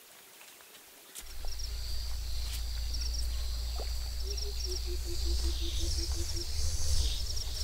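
Layered collage of Ugandan safari field recordings: a steady low rumble enters about a second in, under high, rapidly repeating insect- or bird-like chirps. Midway comes a run of about ten evenly spaced low pulses, about five a second.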